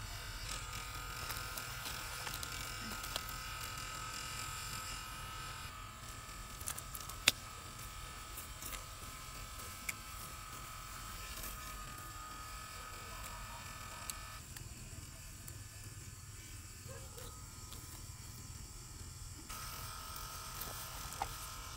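Steady buzzing drone of a small motor, with scattered light clicks and one sharp tap about seven seconds in.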